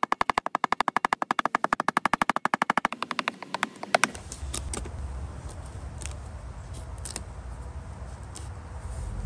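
Steel chisel cutting a hinge mortise into a white melamine panel: a rapid, even run of sharp clicks, about ten a second, that stops about three seconds in. Two or three louder single clicks follow, then only scattered clicks over low wind rumble on the microphone.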